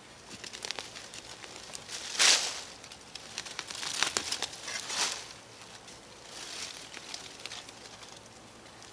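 Small short-handled spade digging into leaf-littered forest soil: a few separate scraping, crackling strokes through dry leaves and earth, the loudest about two seconds in.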